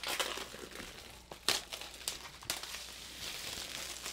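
Plastic shrink wrap being pulled off a cardboard box by its pull tab, crinkling, with a few sharp crackles along the way.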